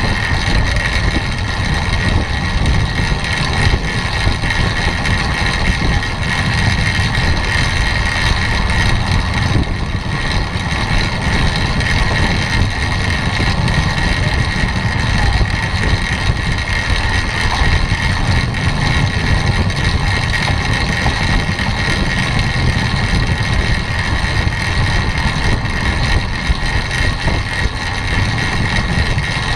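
Steady rush of riding wind on a bike-mounted camera's microphone, with the tyres and drivetrain of a track bike rolling over wooden velodrome boards, and a steady high whine over it.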